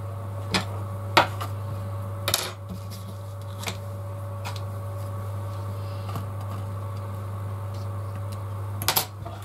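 Small metal hand tools and tiny screws clicking and clinking against a work surface: a handful of sharp taps, loudest about a second in and near the end, over a steady low hum.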